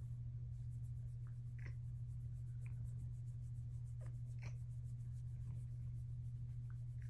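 A hand rubbing and stroking a silver Bengal cat's fur: a soft, scratchy rubbing over a steady low hum, with a few brief faint squeaks or rustles.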